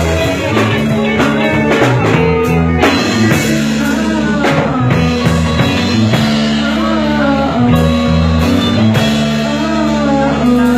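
Rock band playing, with electric guitar, bass and drums and a voice singing over them.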